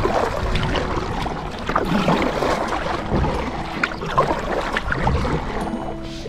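Water splashing and lapping against a kayak's hull as it moves, with wind buffeting the microphone. Music fades in near the end.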